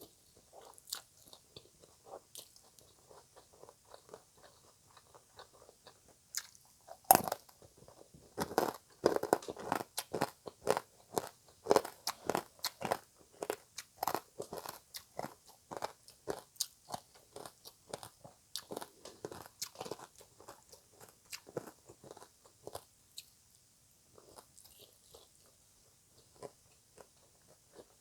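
A person biting and chewing crunchy shredded green papaya salad (som tam). Soft chewing at first, then a sharp crunching bite about seven seconds in, followed by rapid, loud crunching for about fifteen seconds that softens again near the end.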